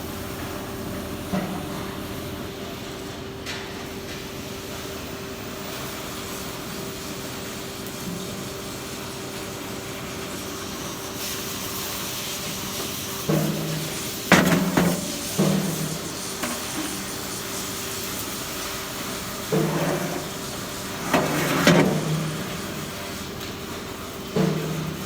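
Steady electrical hum and hiss of welding-shop equipment, broken by a few groups of loud metallic knocks: a cluster about halfway through, another a few seconds later, and a single one near the end.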